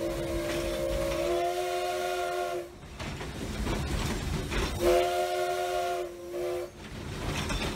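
Steam locomotive whistle blown from the cab by its pull cord, sounding a chord of several notes. The first long blast steps up slightly in pitch about a second in and stops near three seconds; a shorter blast follows about five seconds in, then a brief toot, with the locomotive's hiss and rumble underneath.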